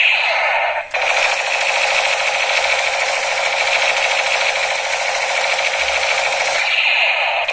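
Electric toy gun firing on automatic: a fast, even mechanical rattle that starts about a second in and cuts off near the end.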